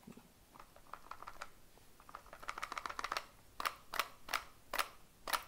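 Glock 48 pistol clacking inside a Kydex holster as the holster is shaken in a retention shake test: a quick run of light rattling clicks, then about five sharp separate clacks in the second half, the gun still held by the holster's own retention with no retention screw fitted.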